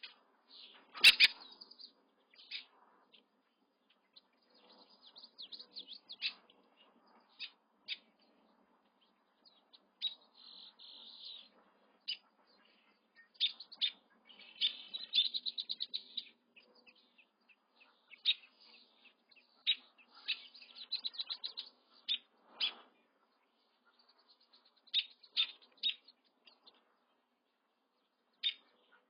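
Crane chicks peeping: bursts of high, rapid peeps and trills, coming and going, with one sharp louder sound about a second in.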